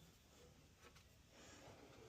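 Near silence: faint room tone with a couple of soft ticks a little before the middle and a faint brief hiss after them.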